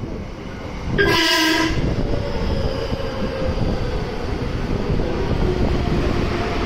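A JR West 223-series electric train sounds one short, loud horn blast about a second in as it enters the station. Its cars then run past close by with a steady rumble.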